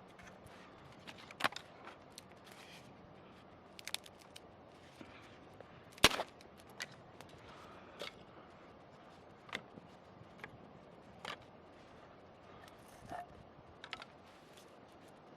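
Scattered sharp snaps and clicks at an irregular pace, the loudest one about six seconds in.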